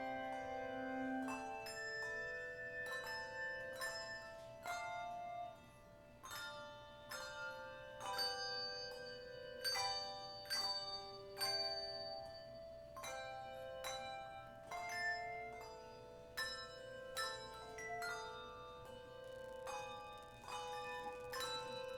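Instrumental music: a slow melody of struck, bell-like notes, each ringing on after its attack.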